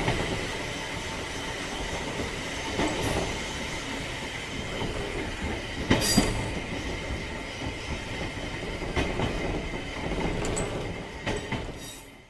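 Railway sound effect of an electric railcar running on track: a steady rumble with a faint steady whine and a sharp wheel clack over a rail joint about every three seconds, fading out near the end.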